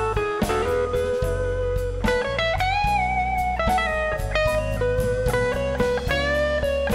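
A live electric blues band playing: an electric guitar carries the lead with sustained notes that waver slightly, over bass, drums and keyboard, with regular drum hits.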